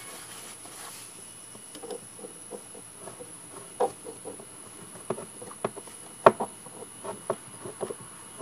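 Irregular clicks and taps of a screwdriver working a hose clamp tight around a fuel pump boot, with one sharper knock a little past six seconds. A steady high whine runs underneath.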